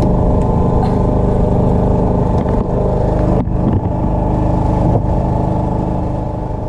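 A small engine on a fishing boat running steadily at constant speed, a loud even drone.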